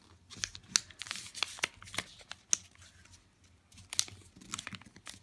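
A sheet of paper being folded and creased by hand: a run of short, sharp crinkles and ticks.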